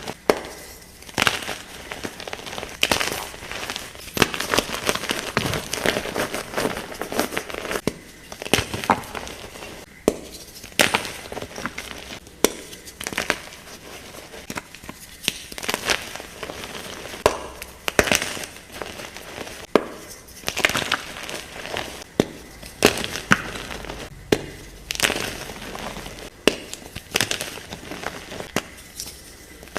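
Blocks of gym chalk being crushed and crumbled: a sharp crunch every second or two, with softer crumbling and powdery rustling between.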